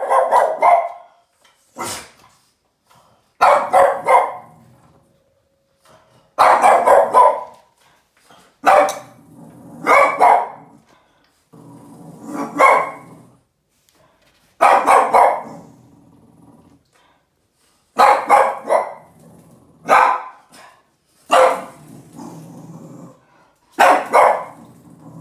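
Boston terrier barking angrily in short bouts of two or three barks, a bout every one to three seconds, with a low growl trailing after several of them.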